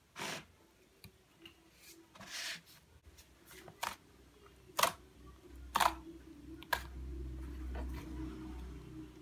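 Thick chocolate-coloured slime being stretched and poked with fingertips, giving a string of short, sharp squelching pops and clicks as the fingers press into it and pull out.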